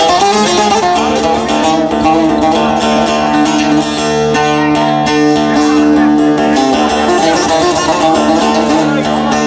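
Bağlama (long-necked Turkish saz) strummed and plucked in an instrumental passage of a Turkish folk tune, with a second saz playing along.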